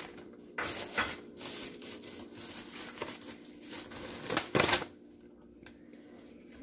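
Thin plastic grocery bags rustling and crinkling as items are handled and pulled out of them, in irregular spells, the loudest about four and a half seconds in.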